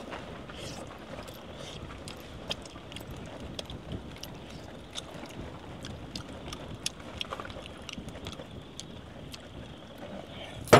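Steady outdoor wind noise, with scattered light clicks and ticks through it.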